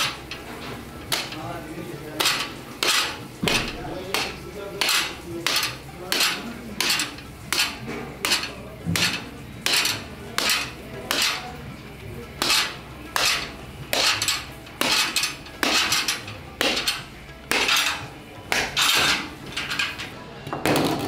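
Steel knife blade swiped against a honing steel in a steady rhythm of just under two short metallic strokes a second, sharpening the knife before butchering.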